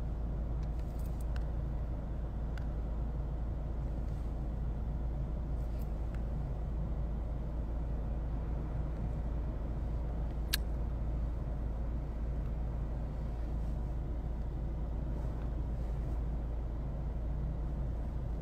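Steady low rumble with a faint hiss, unbroken throughout, and a single sharp click about ten seconds in.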